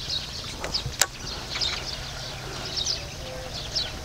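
Small birds chirping: many short, quick notes that slide downward, several a second. A single sharp click sounds about a second in.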